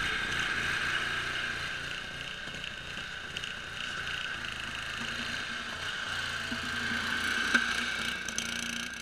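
Homemade Craftsman 6x4 garden tractor's engine running steadily as the tractor drives on snow, with a constant high whine over the engine note.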